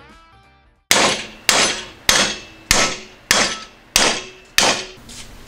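Seven hammer blows, evenly spaced about 0.6 s apart, on a thick metal exhaust-bracket plate clamped in a bench vise, each blow clanging and ringing. The plate is being hammered over to bend it.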